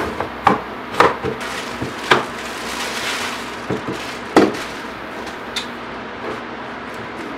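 Plastic packaging bag rustling as AKG K612 Pro headphones are pulled out of it and handled on a tabletop, with a series of sharp clicks and knocks from the plastic headphone frame, loudest about a second in, around two seconds and near the middle. A fan runs steadily underneath.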